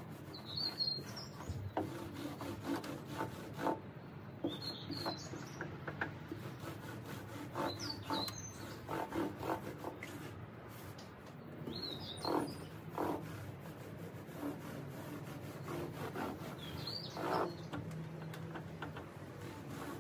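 Mini microfiber roller rubbing and rolling over a sanded timber tabletop and through a roller tray in short strokes, while spreading hardwax oil. Short bird chirps come every few seconds.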